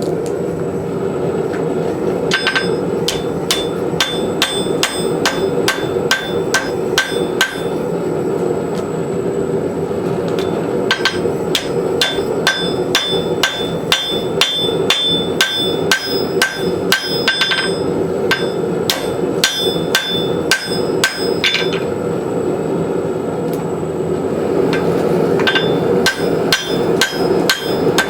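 Blacksmith's hammer striking hot rasp steel on an anvil in runs of quick, ringing blows, a few a second, while forge-welding a tomahawk eye. The forge runs steadily underneath.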